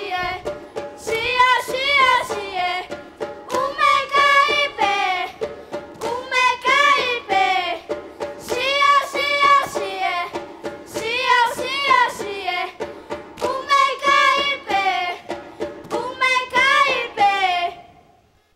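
A group of children singing together, a song of short repeated phrases coming round about every two and a half seconds over a steady held accompaniment. The singing fades out near the end.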